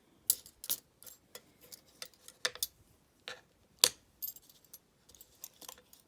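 Steel lock picks and pry bars being set down one after another on a hard surface: a string of irregular sharp clicks and clinks, the loudest a little under four seconds in.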